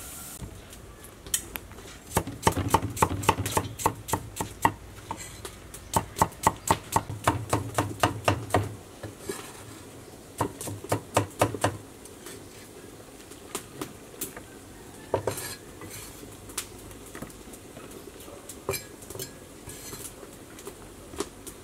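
Cleaver chopping leafy green vegetables on a thick wooden chopping block: three runs of quick knocks, about five a second, each with a dull thud, followed by slower, scattered chops in the second half.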